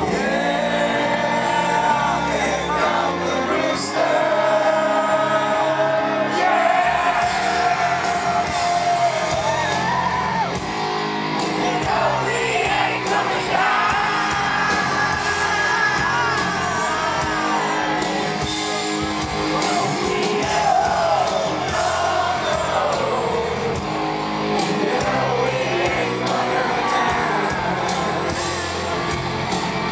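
Live rock band playing through a large outdoor PA: electric guitars, bass and drums under sung vocals with long held notes, recorded from within the audience.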